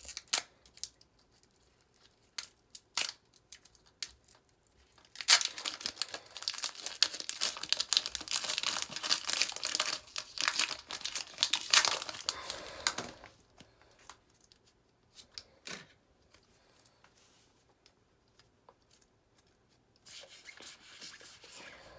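Foil wrapper of a Pokémon TCG booster pack being torn open and crinkled by hand. A few light crackles come first, then about eight seconds of continuous tearing and crinkling, then a quieter spell. A short rustle follows near the end.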